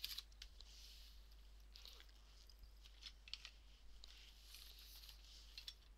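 Near silence with faint rustling and a few light taps as a canvas art bag and a colour book are handled.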